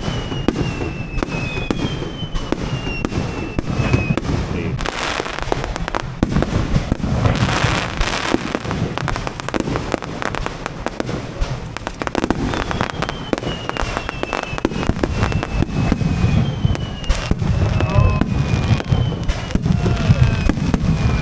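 Aerial fireworks display: a dense run of bangs and crackling bursts from shells exploding overhead, with several long, high whistles that fall slowly in pitch.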